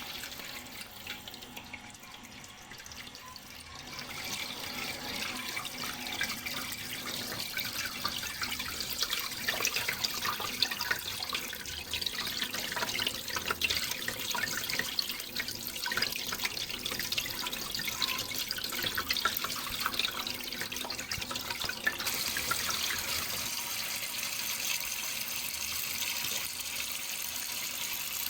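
Running water splashing and trickling steadily, with many small splashes; it is a little quieter for the first few seconds and fuller from about four seconds in.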